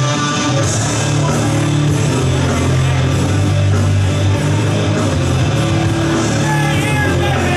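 Loud rock music with electric guitar, played as wrestlers' entrance music.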